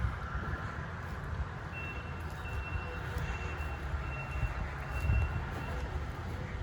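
A vehicle's reversing alarm beeping at one high pitch, about seven short beeps evenly spaced over some four seconds, starting a couple of seconds in, over a steady low rumble.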